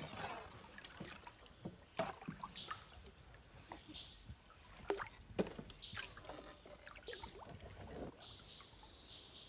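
Paddles dipping and splashing beside a small canoe, with scattered light knocks against the hull, faint throughout. Brief high chirps come and go behind them.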